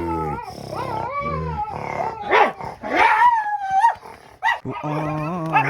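Dog-like howling and yipping: a run of short wavering cries that rise and fall, then a long, steady low howl near the end.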